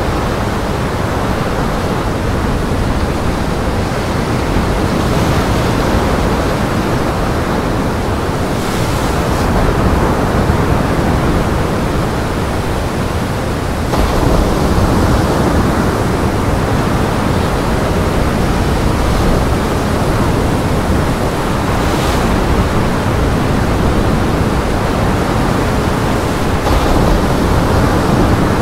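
Steady roar of gale-force wind and rough surf breaking against a rock breakwall, with a few louder surges as waves hit.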